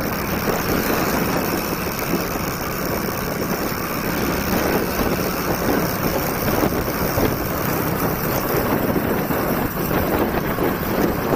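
Hero Splendor motorcycle's single-cylinder four-stroke engine running steadily while riding, mixed with steady wind noise on the microphone.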